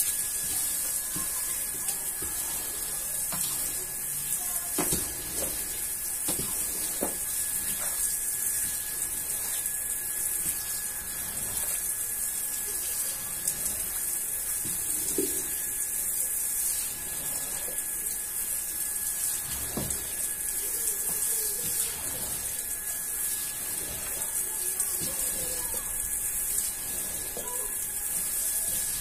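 Water spraying onto a wet rug while a rubber squeegee is pushed across the pile, sweeping soapy water off it: a steady hiss of spray and running water, with a few soft scrapes and knocks.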